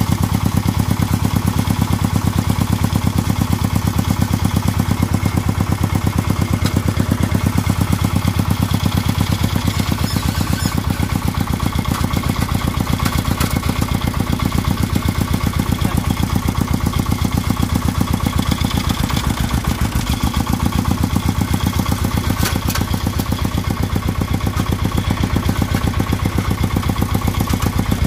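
Single-cylinder diesel engine of a công nông farm vehicle running steadily with an even, rapid chugging beat.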